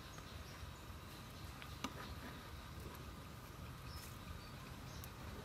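A pot of sour shrimp soup simmering, bubbling faintly, with a few faint short high chirps over it and a single small click about two seconds in.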